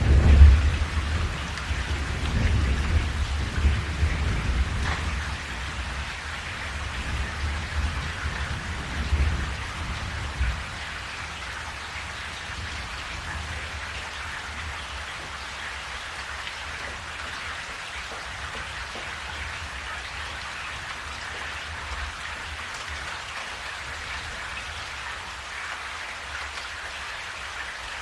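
Steady rain falling, with a rolling rumble of thunder at the start that dies away about ten seconds in, leaving only the rain.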